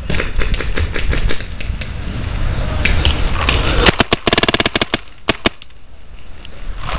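Paintball markers firing in scattered shots, then a fast string of about a dozen shots a little after four seconds in, followed by a few single shots.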